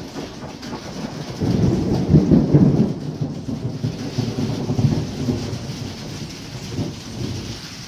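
Thunder rumbling over steady rain: the rumble swells about a second and a half in, is loudest for about a second, then rolls on and fades over several seconds.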